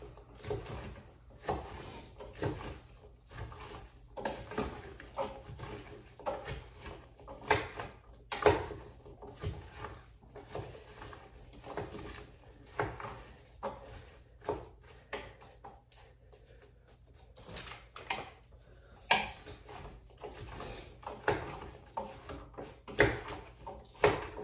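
A spoon stirring chopped vegetables in the stainless steel inner pot of an Instant Pot, with irregular knocks and scrapes against the pot. There is a quieter pause a little past the middle.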